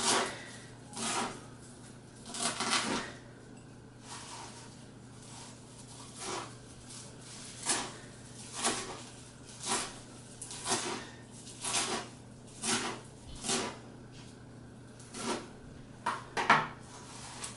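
Chef's knife rough-chopping kale leaves on a plastic cutting board: irregular knocks of the blade on the board, about one a second, with a quieter stretch a few seconds in and a quick, louder cluster of strokes near the end.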